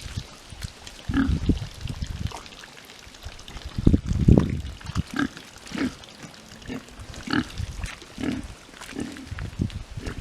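Landrace-cross pigs grunting, a run of short low grunts about one a second, with a louder cluster about four seconds in.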